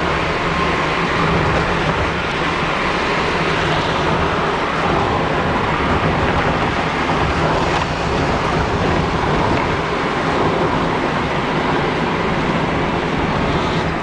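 Car driving at a steady speed, heard from inside the cabin: an even, unbroken drone of engine and road noise.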